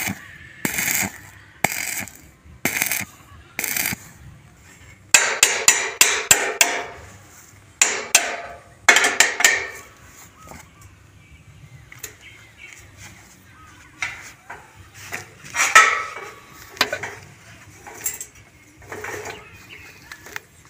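Hammer striking steel tube: single blows about a second apart, then a quick flurry of rapid strikes, then scattered blows.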